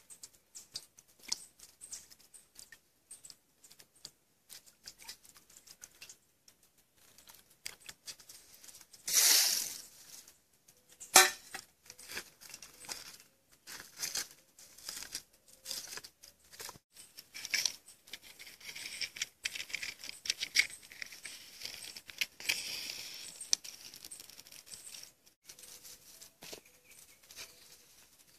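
Dry sticks and leaves being handled and stacked into a small wood fire on gravel: scattered clicks and rustles, a brief loud hiss about nine seconds in and a sharp knock just after, then a denser stretch of crackling in the second half as the fire is lit.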